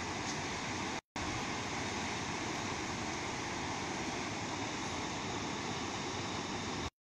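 Steady rush of the muddy Noyyal River in flood, water pouring over a low ledge. It drops out for a moment about a second in and cuts off abruptly near the end.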